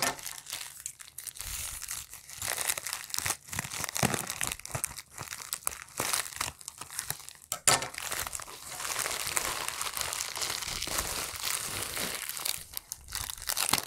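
Plastic bubble-wrap mailer crinkling and rustling as it is handled and opened, with irregular crackles throughout and the busiest stretch in the second half.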